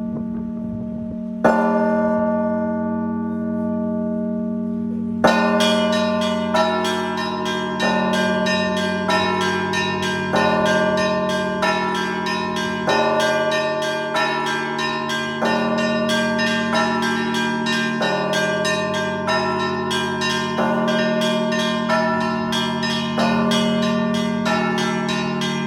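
Russian church bells being rung. A large bell rings out, with single strokes about a second and a half in and again about five seconds in. After that the full peal starts: quick strokes of the small high bells over a steady round of strokes on the deeper bells.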